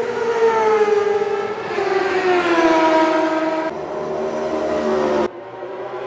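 Sport motorcycles on a race track passing at speed, engine pitch falling as each goes by. The sound breaks off abruptly about three and a half seconds in and again near the end.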